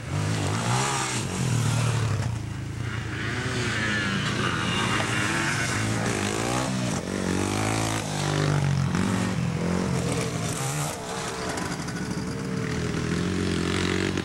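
Dirt bike engine revving up and down as it is ridden, its pitch rising and falling again and again.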